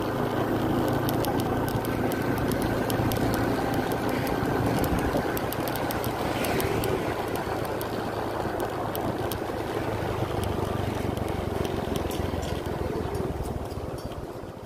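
Motorcycle engine running steadily at road speed, with noise from passing air; it quietens about 13 seconds in as the bike slows down.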